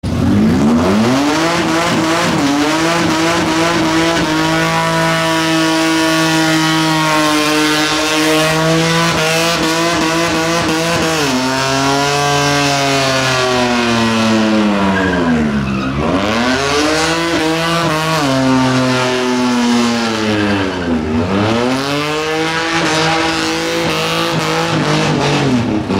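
Supercharged, methanol-fuelled Holden Commodore ute engine held at high revs in a burnout, tyres squealing against the pavement. The revs hold steady at first, then dip sharply and climb back again three times in the second half.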